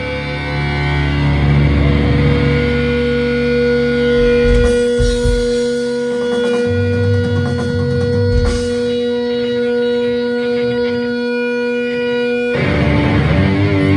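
A rock band playing live on electric guitar and drums. The middle stretch thins to long held, ringing notes with only a few low hits, and the full band comes crashing back in near the end.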